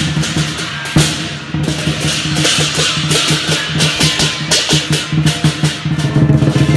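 Lion dance percussion: a large drum beating a fast, steady rhythm with crashing hand cymbals and a gong.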